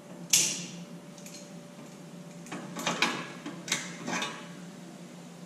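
Sheet-metal repair panel being handled and test-fitted against the car body: a sharp metallic clank about a third of a second in, then a cluster of scraping, rattling knocks around three to four seconds in, over a steady low hum.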